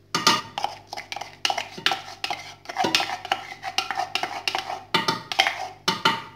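Wooden spoon scraping and knocking a paste of pounded garlic and hot pepper out of a wooden mortar into a steel pot: a quick, uneven run of scrapes and knocks that stops shortly before the end.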